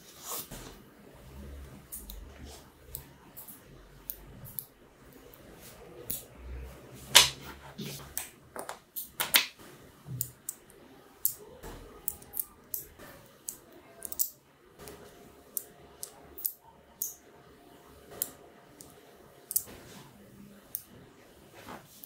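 Small neodymium magnetic balls clicking as they snap onto one another and are pressed into place by hand: irregular sharp clicks, a few a second, the loudest about seven seconds in.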